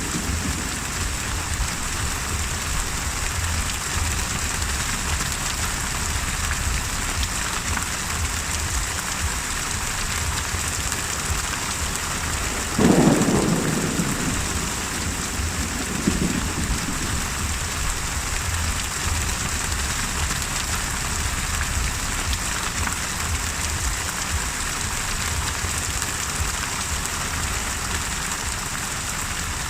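Steady heavy rain from a thunderstorm, with one thunderclap about halfway through followed a few seconds later by a fainter rumble of thunder.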